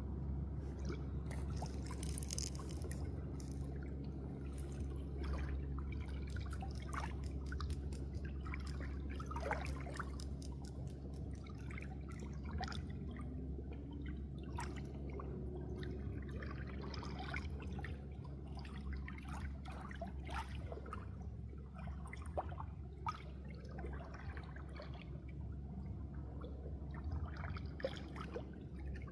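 Water trickling and dripping, with many small irregular drips and splashes over a steady low hum.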